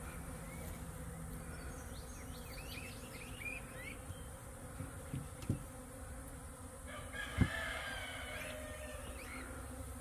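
Honeybee swarm buzzing, a steady hum, with a few sharp wooden knocks a little past the middle as the cover goes onto the wooden hive box. Bird calls in the background.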